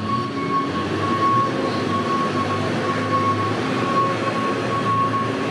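Forklift engine running steadily, a low hum and rumble with a steady high whine over it.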